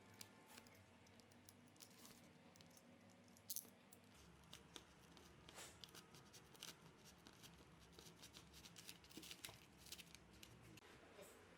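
Faint, scattered clicks and light scrapes of foam floor-mat pieces being handled and fitted, busiest in the second half, over a faint low hum.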